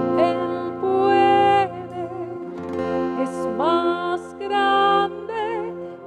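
A live worship band playing a slow song: acoustic guitar and held chords, with two long sung phrases with vibrato over them.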